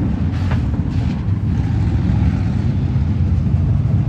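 Several street stock race car engines running together on a dirt oval track, a steady low rumble.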